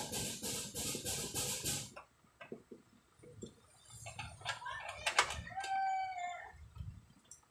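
A rooster crowing about four seconds in, one drawn-out pitched call that dips at the end. Before it, for about the first two seconds, there is a scratchy, pulsing noise from work at the bench.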